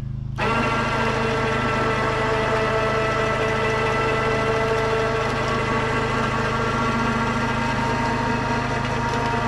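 Winch running steadily with an even whine, pulling a heavy steel wood-mill frame over onto its wheels; it starts about half a second in. Beneath it, a low engine idle hums throughout.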